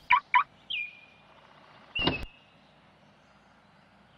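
A car door shuts with one solid thump about two seconds in, after a few short high chirps near the start.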